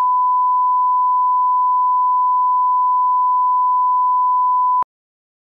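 Steady 1 kHz line-up test tone, the reference tone that accompanies colour bars: one pure, unwavering pitch that cuts off abruptly near the end.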